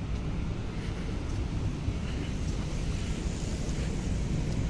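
Steady low rumble of outdoor background noise, with no single distinct event standing out.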